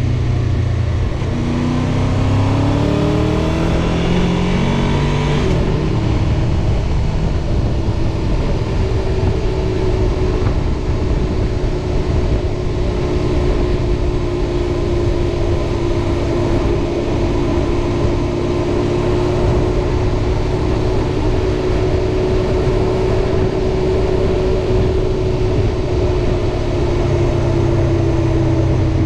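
Honda VFR800's V4 engine pulling up through the gears, its pitch climbing in steps for the first few seconds, then holding a steady cruising note under constant wind rush on the microphone; the note eases down slightly near the end as the bike slows.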